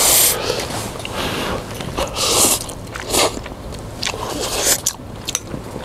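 Ramen noodles being slurped from the bowl, several short slurps a second or so apart, with eating sounds in between.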